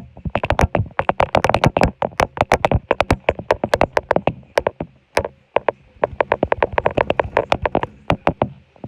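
Loose objects rattling and knocking as an earthquake shakes them: a fast, irregular clatter of sharp knocks, busiest early on and easing briefly a little past halfway before picking up again.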